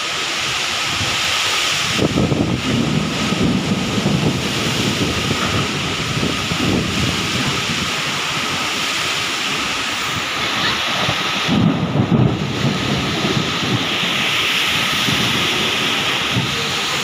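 Heavy rain and strong wind of a nor'wester (Kalbaisakhi) thunderstorm: a steady hiss of rain, with low rumbling surges about two seconds in and again around twelve seconds.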